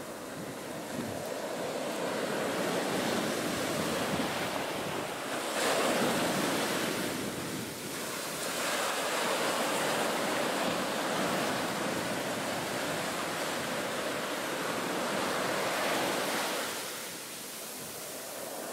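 Ocean surf breaking and washing up the beach: a steady rushing that surges louder twice as waves come in, easing off shortly before the end.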